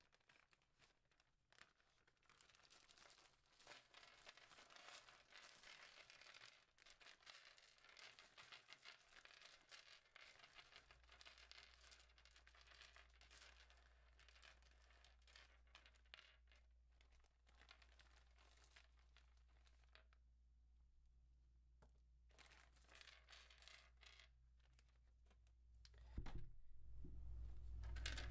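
Faint crinkling and tearing of thin plastic bags being handled and opened, with many small crackles throughout. The sound grows louder near the end.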